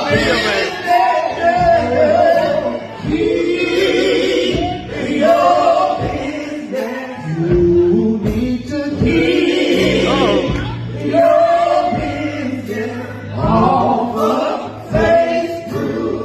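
Background music: a gospel-style song with a male voice and choir singing over a steady bass.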